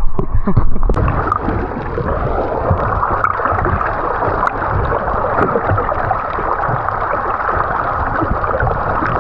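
Sea water gurgling and sloshing close against the microphone, a steady crackling wash.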